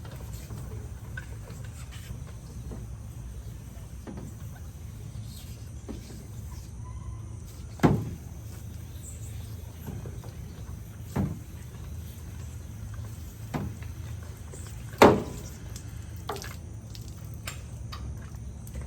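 A handful of sharp knocks and clunks over a steady low hum, the two loudest about 8 and 15 seconds in, like equipment being handled and put away.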